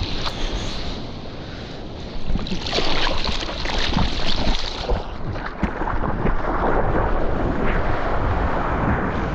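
Seawater rushing and splashing around a surfer's GoPro, with wind buffeting the microphone. A louder stretch of splashing starts about two seconds in and eases off about five seconds in, followed by a steadier rush of water.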